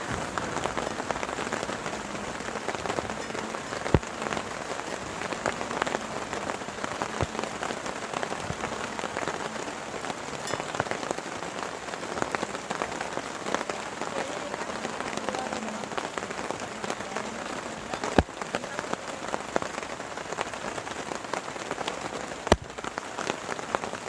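Heavy rain falling steadily, with a few sharp single knocks through it.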